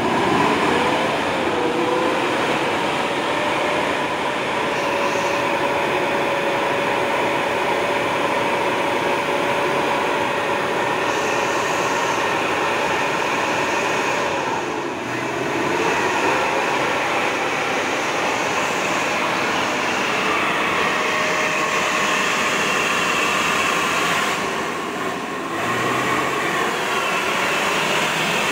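Toyota Land Cruiser 75-series pickup's engine working hard in low gear as it drives through deep mud, with a steady whine over the running. The revs dip and climb back twice, about halfway and near the end.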